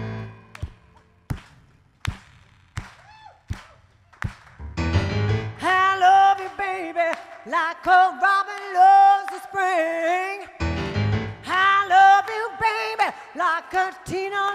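Hand claps on a steady beat, about one every 0.7 seconds. From about five seconds in a keyboard chord comes in under a loud, bending, wordless lead melody.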